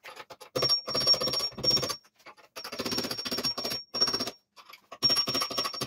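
Rapid metal-on-metal tapping in short bursts, with a thin high ring from the struck metal, as the quill return clock spring is driven out of its housing clamped in a vise.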